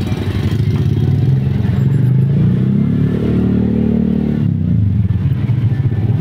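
Motor vehicle engine running, revving up about two seconds in, holding, then dropping back about four and a half seconds in.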